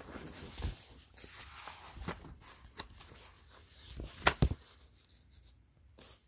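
Scattered light knocks and rustling, with two sharp knocks close together about four seconds in.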